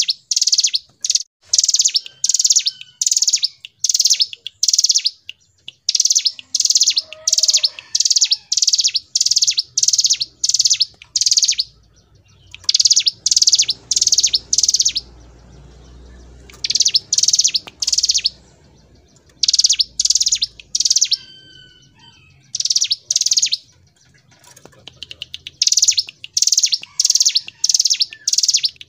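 Hill prinia (ciblek gunung) singing in long bursts of rapid, repeated high notes, the drawn-out rolling song (ngebren) used to train cage birds, with brief pauses between bursts and a few fainter, lower chirps.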